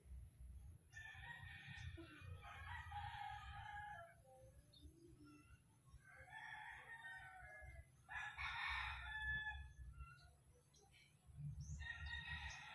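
Roosters crowing faintly: several separate crows, each one to two seconds long, a few seconds apart.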